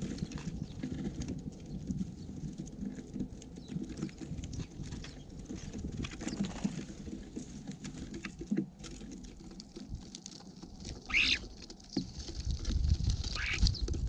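Small birds feeding at a seed feeder close to the microphone: a steady patter of pecking and seed-shuffling clicks, with two short bird calls near the end.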